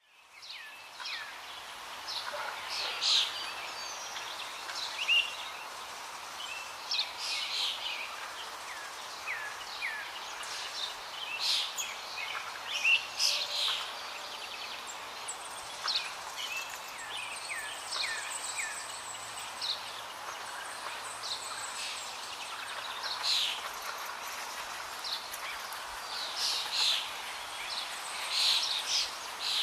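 Birds chirping and calling repeatedly, short quick notes, over a steady hiss of background noise.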